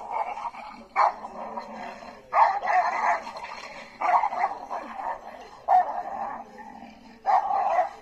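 Dogs in a fight, barking in about five short, loud bursts roughly a second and a half apart, with quieter growly noise between them.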